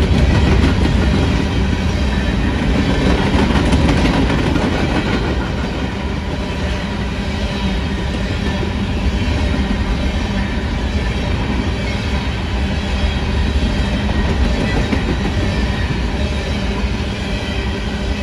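Freight train of open-top coal hopper cars rolling past at speed: steady noise of steel wheels running on the rails, a little louder in the first few seconds.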